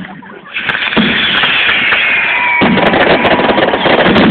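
Fireworks going off: a loud, dense crackle of bursting sparks that starts about half a second in, with a whistle falling in pitch and then a steady whistling tone over it.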